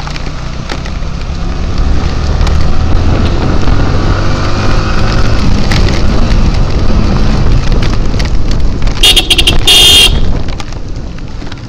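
Sport motorcycle's engine picking up speed, its note rising as it accelerates. A horn beeps twice about nine seconds in.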